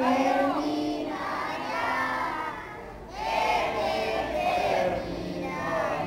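A group of children singing together in chorus, in two long phrases with a short break about three seconds in.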